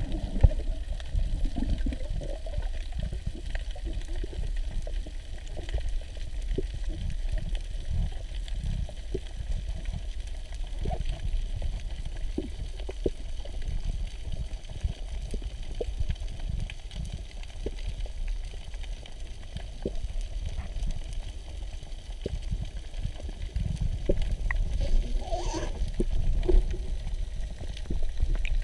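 Underwater ambience: a steady low rumble of moving water with scattered small clicks and crackles, and a brief louder gurgle near the end.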